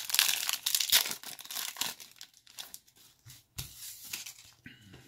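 Plastic foil wrapper of a Panini Mosaic basketball card pack being torn open and crinkled in the hands. The crackle is loudest over the first two seconds, with another short burst of crinkling just before four seconds.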